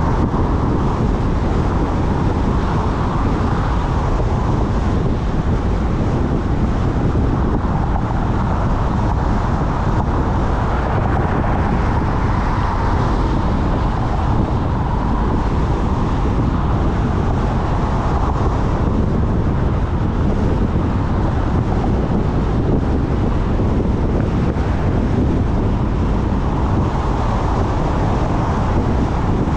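Steady road noise of a car driving at highway speed: tyres on concrete pavement and the engine, with a tyre hiss that swells and eases every few seconds.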